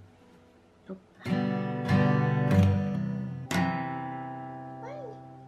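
Steel-string acoustic guitar strummed slowly in single strokes by a toddler with a pick: about four separate strums starting a little over a second in, the last one left to ring and fade away.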